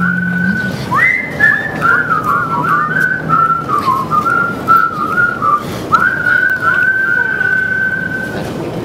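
A person whistling a tune over a faint acoustic guitar. A short held note gives way about a second in to a run of gliding notes, then a long held note that stops shortly before the end.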